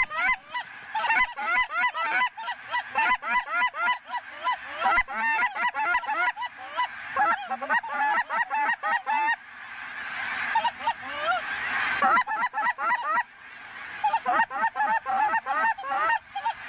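A huge flock of lesser Canada geese calls overhead in a continuous din of many overlapping high cackles and honks. About ten seconds in, a rushing noise swells for a few seconds under thinner calling, then the dense honking returns.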